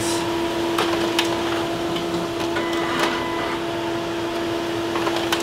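Canon Color imageCLASS MF634Cdw colour laser all-in-one running a colour copy job: a steady motor hum with several sharp clicks as a copied page is fed out into the output tray.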